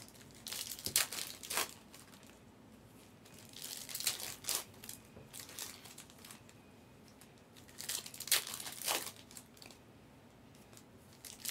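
Foil trading-card packs being torn open and their wrappers crinkled as the cards are handled. The rustling comes in several short spells with quieter gaps between.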